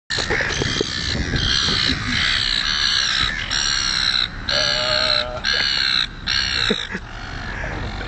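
Gulls calling: a quick run of harsh, repeated calls, one after another, fading out about a second before the end.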